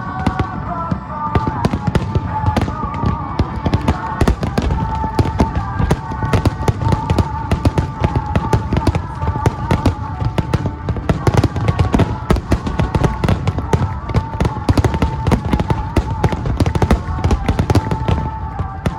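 Fireworks finale: a dense, unbroken barrage of shell bursts and crackling, with held tones underneath.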